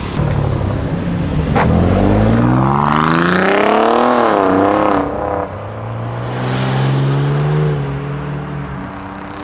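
Performance cars accelerating away one after another. The loudest is an Alfa Romeo Giulia Quadrifoglio's twin-turbo V6, whose engine note climbs steeply from about two seconds in, dips once and climbs again. After a break, a Porsche 911 Turbo's flat-six pulls away more steadily and fades.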